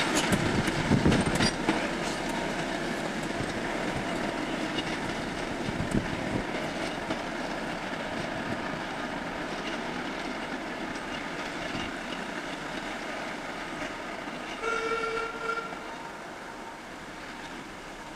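A pair of Class 08 diesel shunters running away along the line, engines running and wheels clattering over the rail joints, fading steadily as they recede. A short horn note sounds about three-quarters of the way through.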